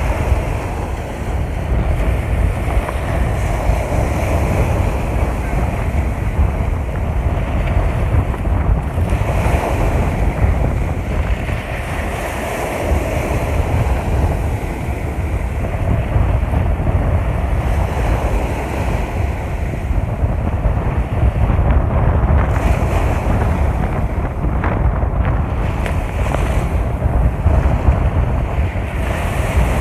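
Small waves washing up onto a sandy beach, swelling and fading every few seconds, under steady wind buffeting the microphone.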